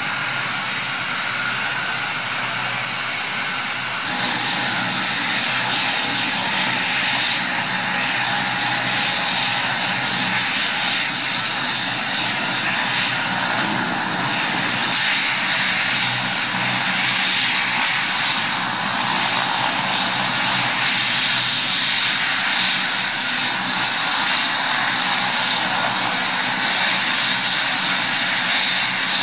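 Twin-turbine engines of a New Jersey State Police AgustaWestland AW139 helicopter running on the ground with its rotors turning: a steady high whine over a loud, even rush. It grows a little louder about four seconds in.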